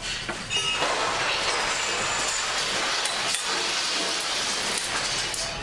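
Storm heard from inside a ship's lounge: a loud, constant rushing of sea and wind against the hull and windows, with a few brief high squeaks and knocks from the ship's structure and fittings.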